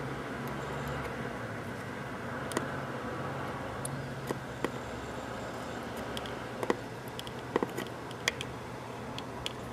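Steady low hum and hiss, with a scattering of small sharp clicks, mostly in the second half, as a soldering iron desolders a tiny surface-mount resistor from a circuit board.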